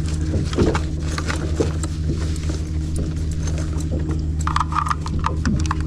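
Fishing boat's engine running steadily with a low hum, with scattered knocks and clicks on top.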